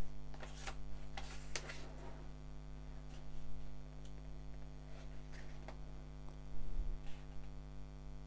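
Pages of a paperback comic book being turned and handled: short paper rustles and light clicks, clustered in the first two seconds and again here and there later, over a steady low electrical hum.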